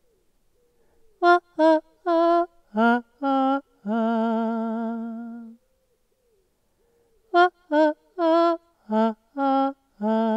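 A woman singing unaccompanied, recorded close and dry with no echo: a phrase of short sung notes ending on a long held note that fades out, a pause of nearly two seconds, then a second phrase of short notes.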